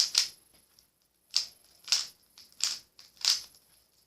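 Plastic 3x3 Rubik's cube being turned by hand, its layers clacking in separate sharp clicks. A couple of turns at the start, a pause of about a second, then a turn roughly every half second.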